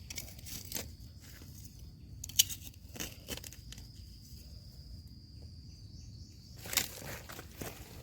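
Crunching and rustling in dry forest litter from footsteps and hands working through the undergrowth, with sharp snaps about two and a half seconds in and again near the end. A faint steady high tone runs through the middle.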